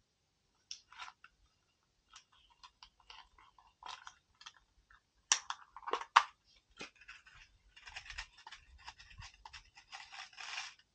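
Hands handling a fishing hook and nylon line at close range: scattered small clicks and rustles, a few sharper clicks about halfway through, and a denser crackling rustle near the end.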